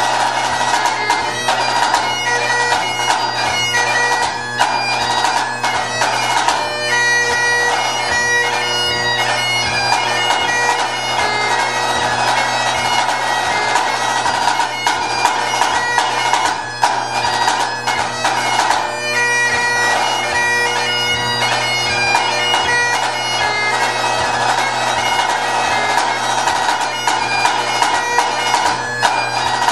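Great Highland bagpipe playing a tune over its steady drones, with a pipe-band snare drum playing many quick strokes alongside it.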